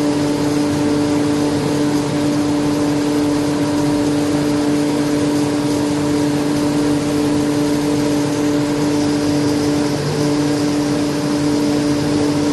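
Vacuum pump running steadily with an even hum, drawing the air out of a glass-lamination bag.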